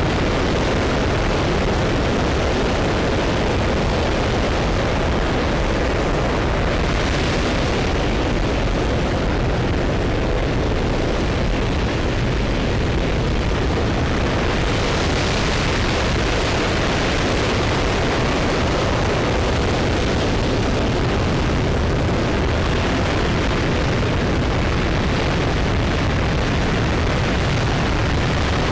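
RS-25 liquid-hydrogen rocket engine running steadily during a static hot-fire test: a loud, dense, even roar that holds the same level throughout.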